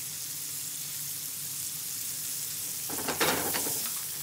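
Halved endives searing in butter in a frying pan, with a steady sizzle. About three seconds in there is a brief clatter.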